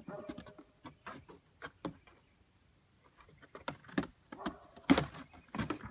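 Goat kids' hooves tapping and knocking on plywood boards: a scatter of sharp taps, a pause, then a busier run with one heavy knock about five seconds in.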